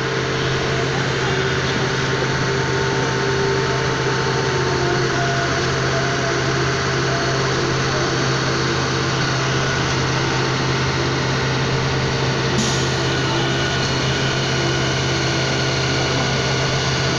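Concrete pump truck's diesel engine running steadily, a constant low drone.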